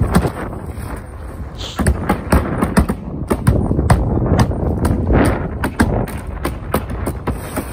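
Hand hammer driving roofing nails into asphalt shingles: a run of sharp, irregular knocks, a few a second.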